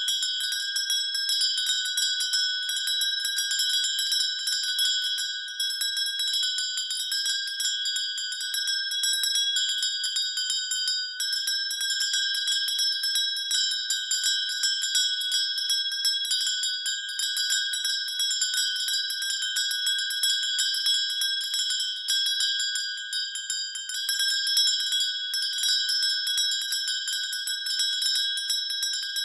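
Hand bell shaken continuously, its clapper striking rapidly over and over, so the ringing never dies away.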